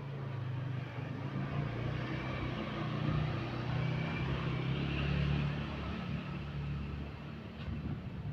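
A motor vehicle engine running as it passes, its low hum growing louder towards the middle and easing off near the end.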